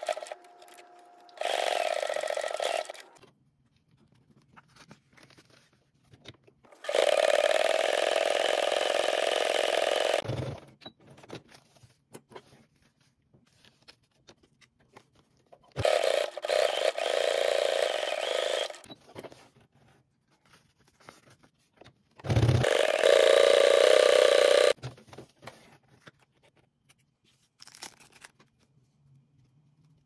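Brother electric sewing machine stitching in four short runs of two to four seconds each, its motor running at a steady pitch through each run. Soft clicks of the fabric being handled between runs.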